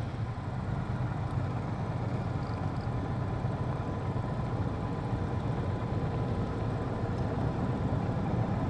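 Motorcycle engine running steadily at low revs, a continuous low rumble, with a faint steady high tone over it.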